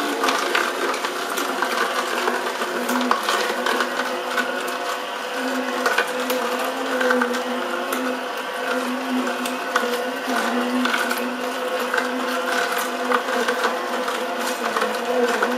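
Sharp EJCP10BJR slow juicer running on carrots: a steady motor hum, with irregular crunching and cracking as the auger crushes the carrot pieces.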